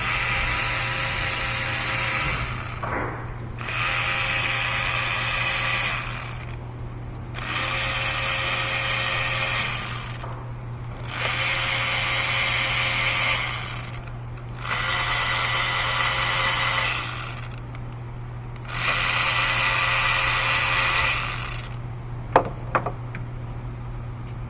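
Electric ratchet running in six short bursts of about two seconds each, with a steady motor whine, spinning out fasteners on the engine during a spark plug job. A couple of sharp clicks come near the end.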